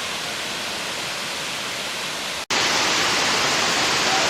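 Waterfall rushing as a steady roar of falling water. It cuts out for an instant a little over halfway through, then comes back louder.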